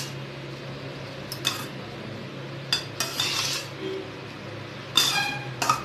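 Steel spoon scraping and clinking against a stainless steel bowl while mixing cooked rice, with scattered sharp clinks, the loudest about three and five seconds in.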